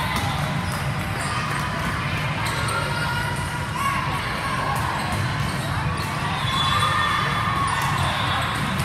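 Busy din of a multi-court volleyball hall: many players' and spectators' voices mixed with repeated thuds of balls bouncing and being hit on the courts, all carried by the large hall.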